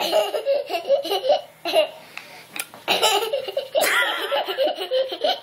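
Hearty, high-pitched laughter in short repeated bursts.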